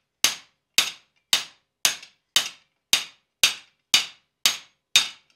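Hand hammer striking the top die of a guillotine tool on the anvil in a steady rhythm, about two blows a second, each a sharp metallic hit that fades quickly. The blows are butchering the shoulder of a tenon into a hot iron bar.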